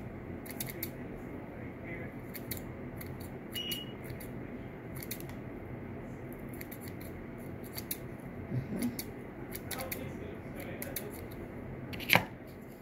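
Scissors snipping excess jute cord from a cord-wrapped screwdriver handle: scattered short, sharp clicks of the blades closing. A single louder knock near the end.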